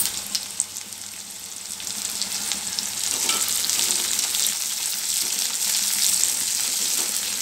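Onions, garlic and freshly added green chillies sizzling in hot oil in a kadai, getting louder about two to three seconds in as a silicone spatula stirs them through the pan.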